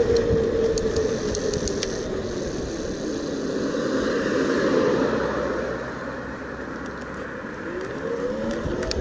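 Bafang BBS02 mid-drive motor whining, the whine sagging a little and fading out over the first two seconds as the bike slows, under wind and tyre noise that swells midway. Near the end the motor whine comes back and rises in pitch as it pulls again, with a few light clicks.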